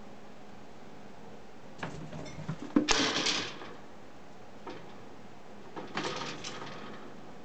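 Wooden-framed wire pet gate knocking and rattling as a toy poodle jumps up against it. A few light clicks lead into a sharp knock and rattle about three seconds in, then a second, shorter rattle about six seconds in.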